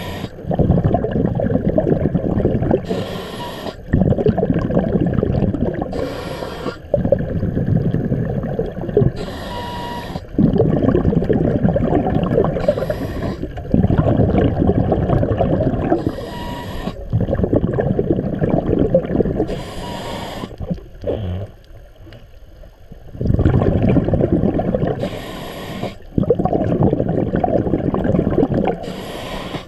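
Scuba diver breathing through a regulator underwater: a short hissing inhale, then a longer bubbling exhale, repeating about every three seconds, with one longer pause a little past the middle.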